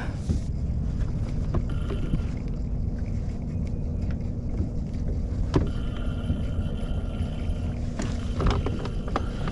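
A boat's motor running steadily with a low hum, with one sharp click about five and a half seconds in.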